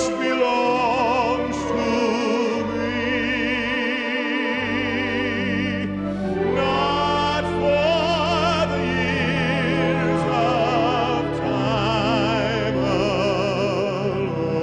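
Music: a classically trained voice singing sustained notes with wide vibrato, over an accompaniment of held low bass notes that change every second or two.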